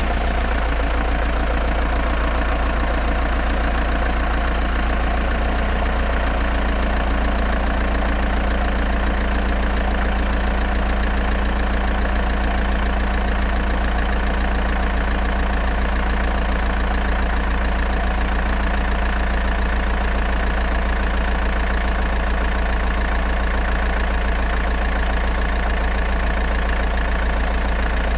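Diesel engine of a DOTSU DE17V5 mini excavator idling steadily, with an even low clatter.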